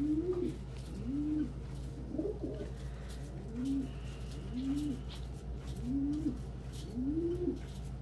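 Domestic pigeons cooing: a run of low coos, each rising and falling in pitch, about one a second. A steady low hum runs underneath.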